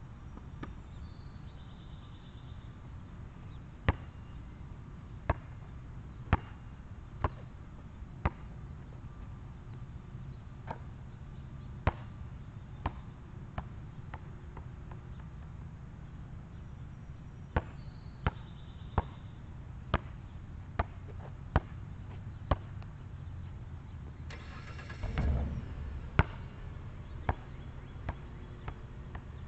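Basketball bouncing on an outdoor asphalt court: sharp single thuds in irregular runs of about one or two a second while being dribbled, over a steady low rumble. About 25 s in there is a louder rattling clatter that lasts over a second.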